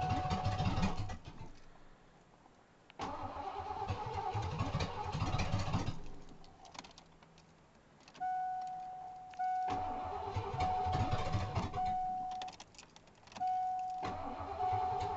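1988 Ford Crown Victoria's V8, freshly rebuilt, being cranked by the starter in four separate tries without catching. A steady high dashboard warning chime sounds during some of the cranking.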